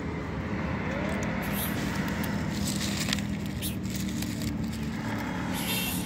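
Steady street-traffic rumble with a low engine hum, and a few short crackles of a cat crunching dry kibble off a paper sheet.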